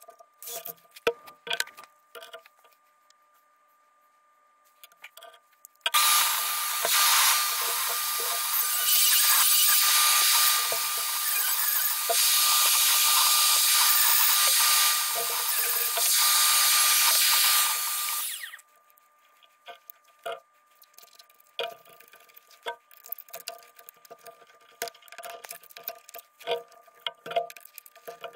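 Handheld rotary tool running at high speed with a steady whine, cutting into the model jet's fuselage to fit the fuel vent valve; it cuts for about twelve seconds, easing off and starting again a few times. Before and after, light clicks and taps of small parts being handled.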